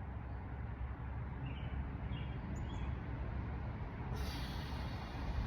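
Outdoor ambience: a steady low rumble with a few short, faint bird chirps, and a hiss that comes in suddenly about four seconds in.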